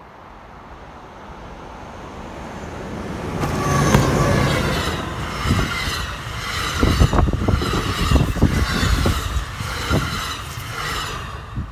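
Commuter train of double-deck coaches approaching, growing steadily louder, then passing close by from about four seconds in with a rushing hiss and the repeated clatter of wheels over the rails.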